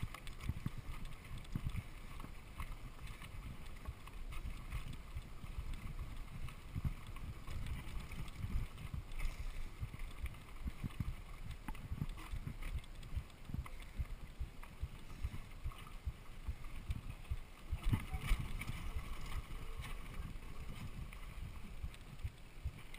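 Mountain bike riding over a rooty, rocky dirt trail: tyres rumbling on the ground, with the bike and camera rattling through a steady run of small jolts, the biggest about 18 seconds in.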